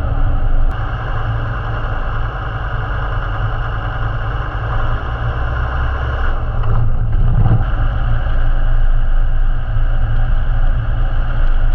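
A four-wheel-drive's engine running with a steady low drone. It swells briefly a little past halfway.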